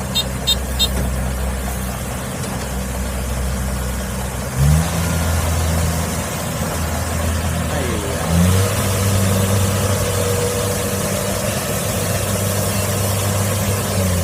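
Diesel engine of a Kubota DC70 Plus combine harvester running under load. It revs up twice, about a third and about two-thirds of the way in, and drops back at the very end.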